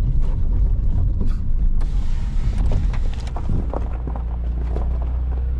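Car driving slowly over a rough, rocky track: a low engine and road rumble with creaks and knocks from the suspension and body. From about three and a half seconds in, the engine settles into a steadier hum.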